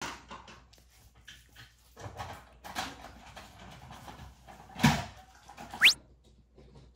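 Light clicks and knocks of small plastic toy cars being handled and set down on a wooden TV cabinet, with one louder knock about five seconds in. Near the end comes a quick, high rising chirp.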